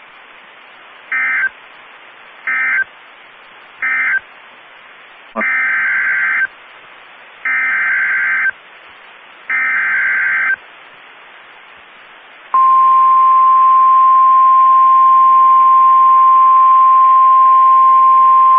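NOAA Weather Radio Emergency Alert System (SAME) data tones: three short buzzy bursts, the end-of-message code of the previous warning, then three longer, one-second bursts, the digital header of the next warning. About 12 seconds in, the steady single-pitched weather radio warning alarm tone starts and holds.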